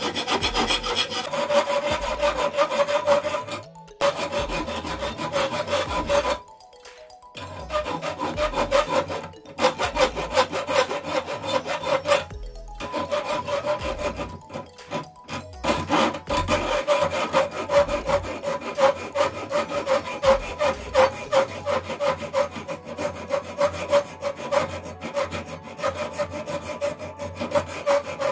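Hand files rasping over rusty iron knuckles clamped in a vise, fast back-and-forth strokes, with a few short breaks. A round file works the piece first, then a flat file.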